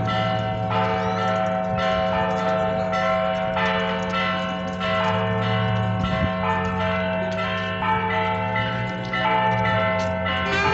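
Church bells ringing, with strikes about twice a second over a sustained ringing hum.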